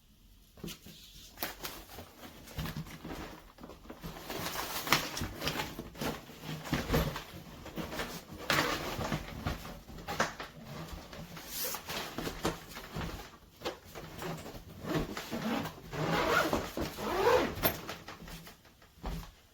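Hardshell suitcases being handled: scattered clicks and knocks, with several longer scraping or rustling bursts a second or two long.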